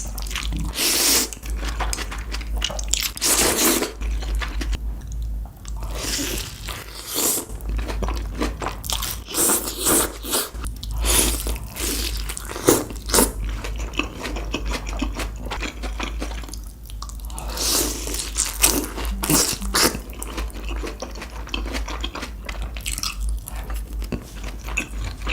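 Close-miked eating: a person biting into and chewing crunchy food, a quick irregular string of crisp crunches. A steady low hum runs underneath.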